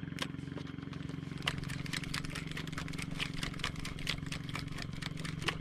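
Small outrigger boat engine running steadily at low speed. From about a second and a half in, many irregular sharp clicks and ticks sound over it.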